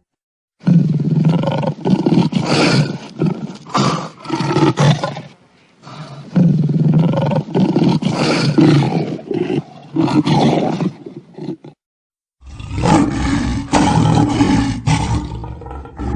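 Lion roaring in three long bouts, each a run of pulsing roars, separated by brief cuts to silence about five seconds and eleven seconds in.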